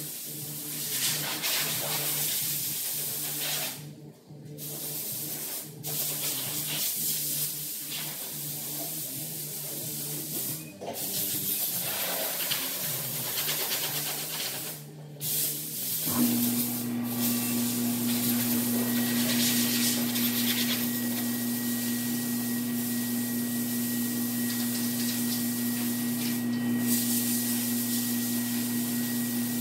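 Compressed-air gun on a shop air hose hissing in bursts, with short breaks as the trigger is let go. About halfway through, a steady low machine hum starts and carries on under it.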